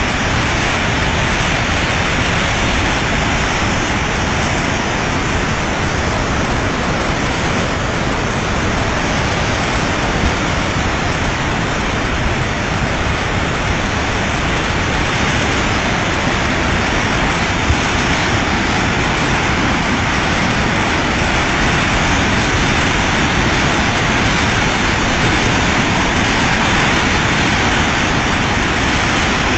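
Flash-flood torrent of muddy water rushing and churning, a loud, steady roar with no break.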